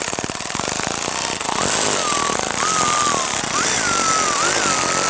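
Cordless electric ratchet driving a plastic nut that cuts its own threads onto a door panel stud. Rapid clicking for the first second or so gives way to a motor whine that rises and falls in pitch as the nut tightens.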